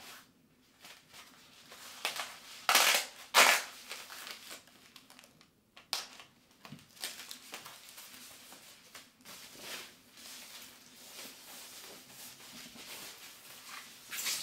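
Packing wrap being crinkled and pulled off a model jet's tail part. There are a few loud crunches about three seconds in, then softer, continuous crinkling.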